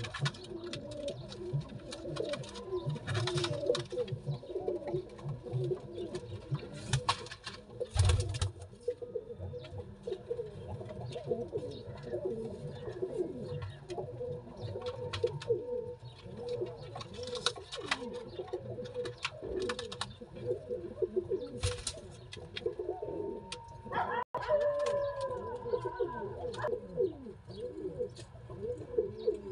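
Domestic pigeons cooing, many calls overlapping steadily, with scattered sharp clicks and a low thump about eight seconds in.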